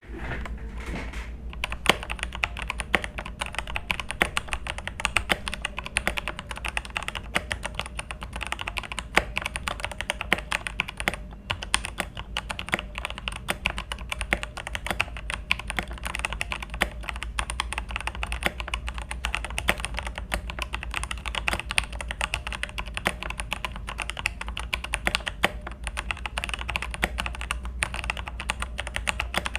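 Continuous fast typing on a FreeWolf K87 mechanical keyboard with Jixian Red linear switches: a dense, uneven stream of key clacks.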